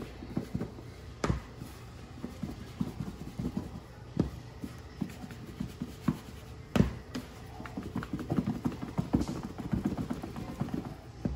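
Raw chicken pieces knocking and tumbling inside a lidded plastic bowl of seasoned flour as it is shaken to coat them. It is a run of soft thuds with a few sharper bumps, the loudest about seven seconds in, and it gets faster and denser near the end.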